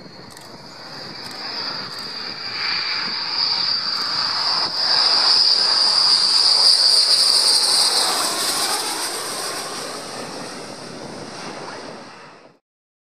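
McDonnell Douglas F-15E Strike Eagle on landing approach, its twin jet engines giving a loud, high-pitched whine over a rushing roar. The sound swells as the jet passes, is loudest about halfway through, then drops in pitch and fades, and cuts off suddenly near the end.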